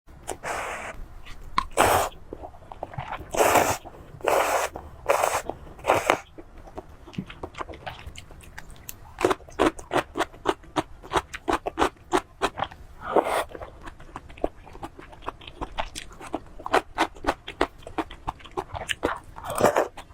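A person eating: several loud crunching bites early on, then long runs of quick chewing clicks.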